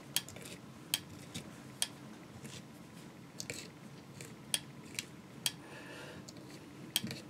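A dog brush being stroked through the synthetic craft fur and laser yarn of a fly in a vise, a dozen or so sharp ticks at uneven intervals as the bristles flick off the fibres, with faint rustling between strokes.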